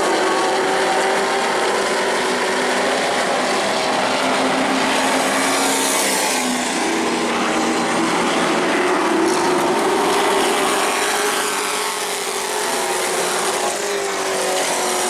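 A pack of Pro Truck race trucks' engines running at racing speed around a short oval track. The engine notes rise and fall as the trucks go through the turns and down the straights, and they are loudest and brightest about six seconds in as the pack goes by.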